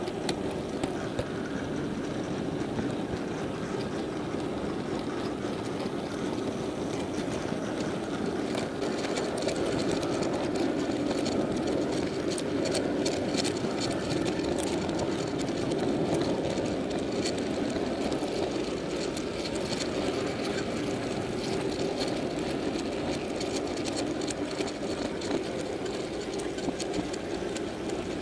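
Steady rumble of a model freight train's wheels and running gear, picked up by a camera riding on one of its wagons, with a run of sharp clicks about halfway through as the wheels cross rail joints and points.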